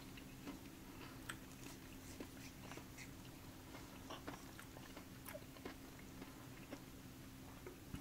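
Faint chewing of a scalded geoduck siphon, with small irregular crunchy clicks.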